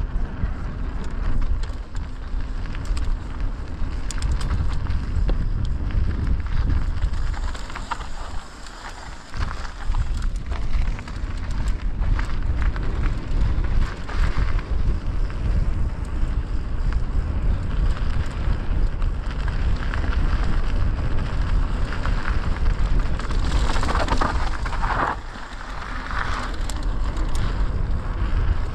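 Mountain bike riding downhill on a dirt trail: tyres rolling over the trail surface and the bike rattling over bumps, with wind rumbling on the microphone. The noise dips briefly about eight seconds in.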